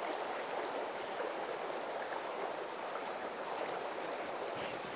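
Steady flowing river current, an even rush of moving water with no breaks.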